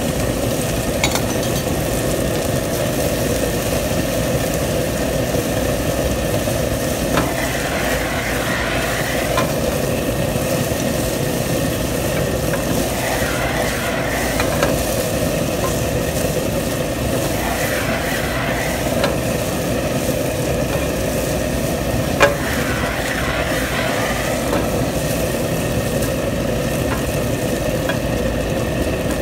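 Chicken, diced vegetables and egg sizzling in a nonstick frying pan as they are stirred and scraped with a plastic spatula, with a few sharp taps of the spatula on the pan, the loudest about 22 seconds in. A steady mechanical hum runs underneath.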